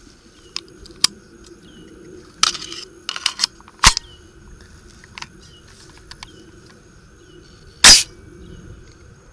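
Daniel Defense DDM4 AR-15 rifle being handled: a series of metallic clicks and clacks from its action, with the loudest, a sharp clack near the end, as the bolt carrier goes forward and closes.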